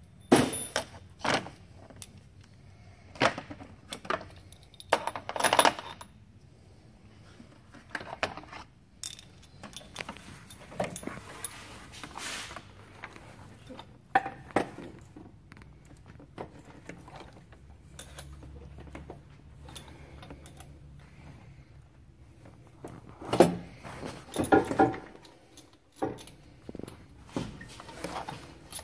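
Intermittent metallic clinks and knocks of steel bolts and a Fluidampr crankshaft damper being handled and fitted onto the engine's crank hub, with louder clusters about five seconds in and again about two-thirds through.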